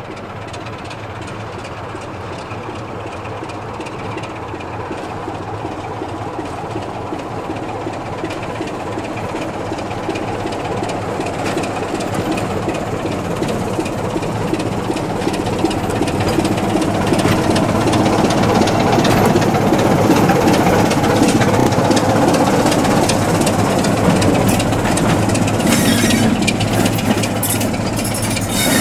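BR Class 27 diesel locomotive's Sulzer six-cylinder engine working as it hauls a train of coaches toward the listener, growing steadily louder. In the last few seconds, wheel clatter over the rails joins in as it passes close.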